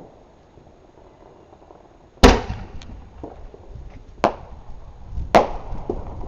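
Fireworks going off: three sharp bangs a second or so apart, the first the loudest, with a few smaller pops between them and a low rumble after each.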